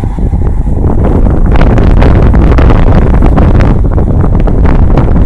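Wind buffeting the microphone: a loud, dense rumble, a little louder after the first second.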